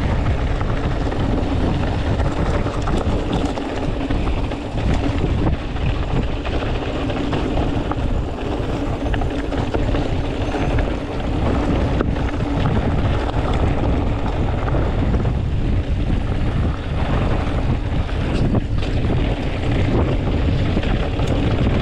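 Wind rushing over the microphone and knobby tyres rolling over a dirt trail on a GT Avalanche hardtail mountain bike, with scattered clicks and rattles from the bike.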